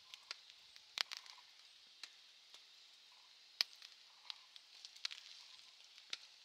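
Small wood fire crackling in a firebox wood stove: scattered sharp pops and ticks at irregular intervals over a faint hiss, the loudest pops about a second in and near the middle.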